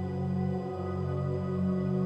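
Slow ambient new-age background music with long held notes.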